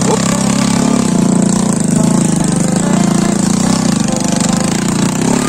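Small step-through motorcycle engine running steadily at low speed as the bike, laden with oil palm fruit bunches, crawls through deep mud close by.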